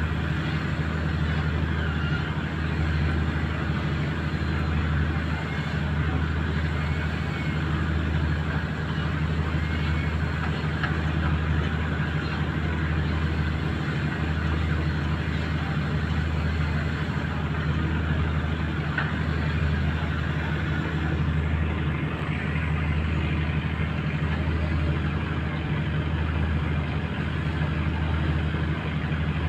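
Fishing boat's engine running steadily, a low drone that swells slightly about every two seconds, with water and wash noise over it.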